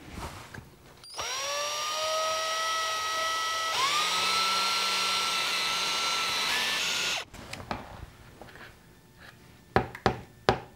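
Handheld drill spinning a finned paddle mixer through plaster slurry in a plastic tub. The motor whine climbs as it spins up about a second in, drops and spins up again near the middle, and stops about seven seconds in. A few sharp knocks follow near the end.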